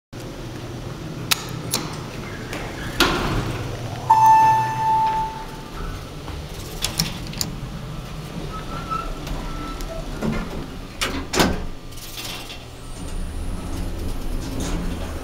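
A U.S. Elevator traction passenger elevator being called and ridden. Button clicks come first, then a single arrival chime about four seconds in and the doors sliding. More button clicks follow, two loud knocks around eleven seconds in as the doors shut, and then a low steady hum as the car starts to travel.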